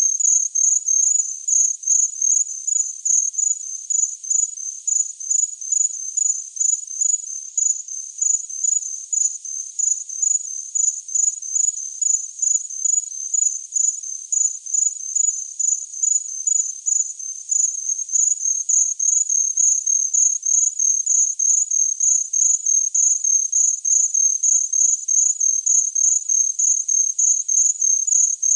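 Cricket chirping: a quick, even run of high-pitched chirps that keeps going without a break.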